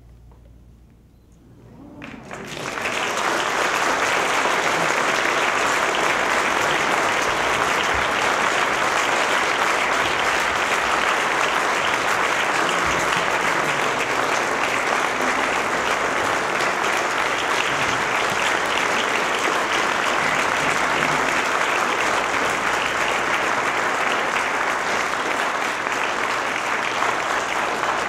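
Audience applauding: after about two seconds of quiet, clapping swells up quickly and holds steady.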